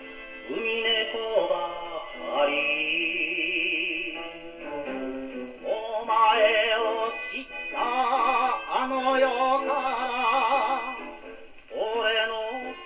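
Portable wind-up gramophone playing a 78 rpm record of a Japanese enka song through a steel needle: a male singer's vocal with heavy vibrato, sung in phrases with short breaks about five seconds in and near the end. The sound is thin, with no deep bass and no high treble.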